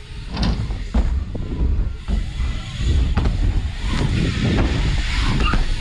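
Wind rumbling on the microphone, with BMX bikes rolling over wooden ramps and several sharp knocks and clatters from the bikes.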